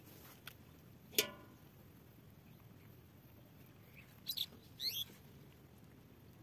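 Small birds calling in short bursts: one sharp call about a second in, then two high chirps and a quick warbling chirp near the end, over a faint steady hiss.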